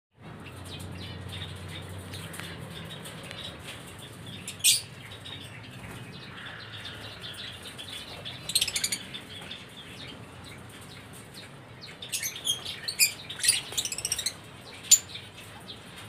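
Cockatiels in a wire aviary chirping: a single sharp call about five seconds in, a short burst of calls near nine seconds, and a run of several calls in the last few seconds, over a steady background hiss.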